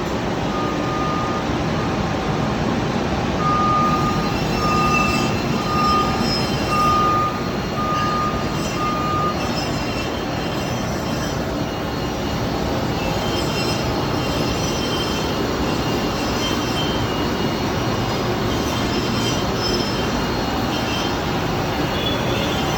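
HEM V120HA automatic-feed vertical bandsaw running, with its 7.5 HP saw motor and 5 HP hydraulic unit making a steady mechanical noise, and faint high-pitched squealing tones that come and go. In the first ten seconds a beeper sounds about nine times at an even pace, roughly once a second.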